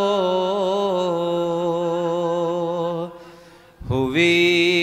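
A man's solo voice chanting an Urdu salaam (devotional lament), holding a long wavering note at the end of the line. The note fades out about three seconds in and, after a short breath, the next phrase begins near the end.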